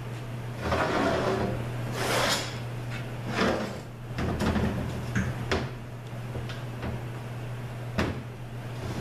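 Ford A4LD automatic transmission being rolled over and slid on a metal workbench: four scraping slides over the first five seconds, then a few short knocks, the sharpest about eight seconds in.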